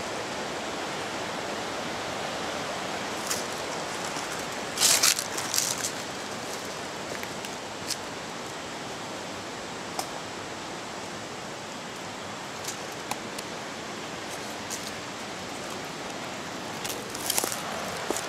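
Steady hiss of rushing water, with a few sharp scuffs and knocks; the loudest come about five seconds in and again near the end.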